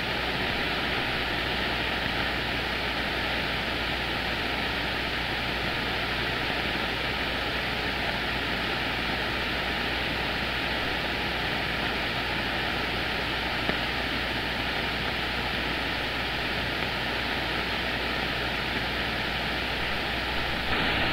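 Steady static hiss from a CB radio receiver on the 27 MHz band, heard with no station coming through between transmissions.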